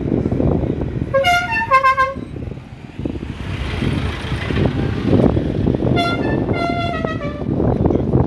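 Road traffic passing, with a vehicle horn sounding twice, each time a short run of notes stepping in pitch, about a second in and again about six seconds in.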